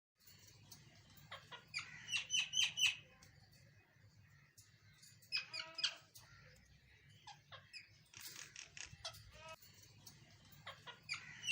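Birds chirping in quick clusters of short, high notes, about two seconds in and again near the end, with one louder, lower call in the middle.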